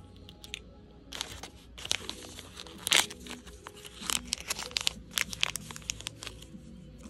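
A small crimp-edged plastic wrapper packet being pulled and torn open by hand: a run of crinkling, crackling tears between about one and six seconds in, loudest around three seconds.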